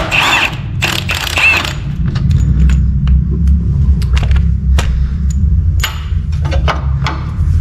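Motorbikes going down a lane, heard as a steady low rumble, with scattered sharp knocks and clicks close by.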